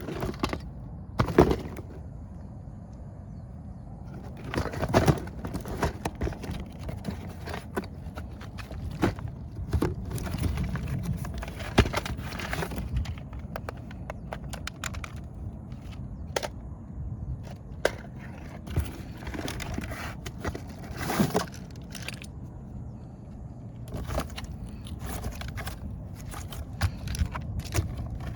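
Hands unpacking a boxed toy: packaging rustling and crackling, with irregular clicks and knocks as pieces are handled.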